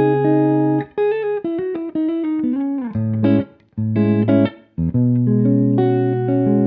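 Jazz guitar playing. A held chord gives way about a second in to a quick run of single notes that slide downward, followed by chords struck about once a second.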